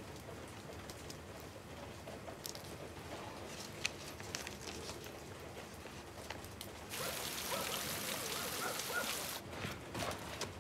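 Soft patter of rain with light rustles and clicks of paper notes being handled. A louder steady hiss cuts in about seven seconds in and stops abruptly two seconds later.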